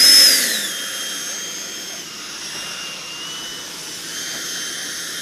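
Jet engine of a large RC model jet running on the ground: a high whine that swells and falls at the start, then holds steady with small dips and rises in pitch as the throttle moves.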